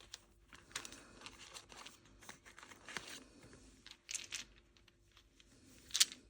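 Packaging being handled and unwrapped: faint, irregular rustling and crinkling, with a sharper crinkle near the end.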